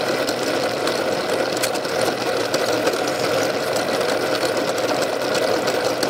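Bench drill press running steadily, with a flat file scraping on a metal soldering-iron tip that spins in its chuck, turning it to a point as on a lathe.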